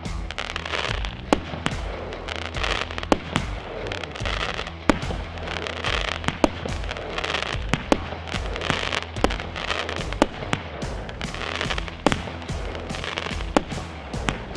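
Weco 'The New Beastmaster' 18-shot firework battery firing, with a sharp report about once a second, each followed by a short rush of crackle as the shell bursts.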